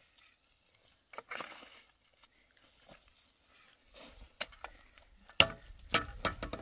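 Scattered knocks and clatters, with a brief scrape about a second in. The knocks come closer together and louder in the last two seconds, the sharpest about five and a half seconds in.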